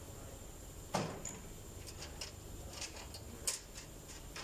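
A few light clicks and knocks from parts and tools being handled on an engine stand, the sharpest about a second in.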